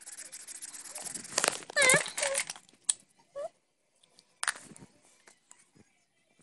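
Felt-tip marker scribbling on paper, with a few short high-pitched squeaks about two seconds in and one sharp tap later on.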